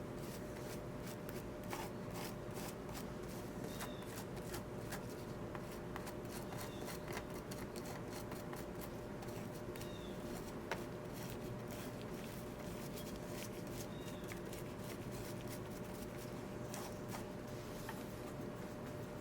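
Soldering iron melting solder along stained-glass seams: a fast, irregular crackle of small clicks from the flux, over a steady faint hum.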